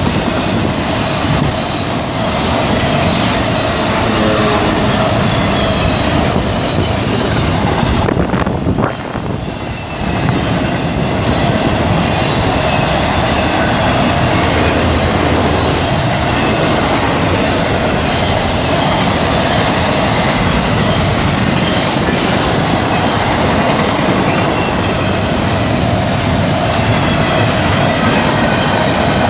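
CSX intermodal freight train of trailer and double-stack container cars passing close by: steel wheels rolling along the rails, loud and steady, with a brief drop about nine seconds in.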